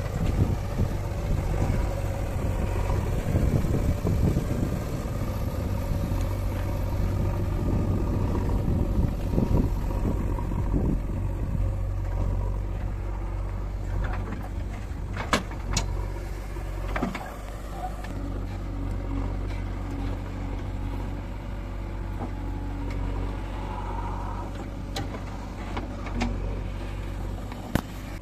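Diesel engines of a JCB 3DX backhoe loader and a farm tractor running steadily at work. A few sharp knocks are heard in the second half, several close together around the middle.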